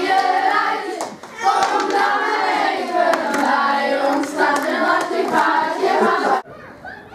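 A group of children singing together while clapping their hands; the singing stops abruptly about six seconds in.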